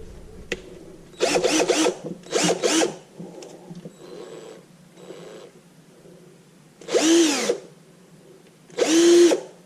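Cheap cordless drill with a generic RS-550 brushed motor, freshly reassembled and test-run in about six short trigger pulls. Each time the motor whines up and spins back down. Some pulls are louder and a couple, in the middle, are quieter. It runs, showing the reassembly worked.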